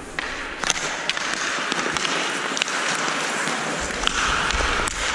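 Ice hockey skates scraping and gliding on the ice, with a few sharp clicks of sticks and puck scattered through.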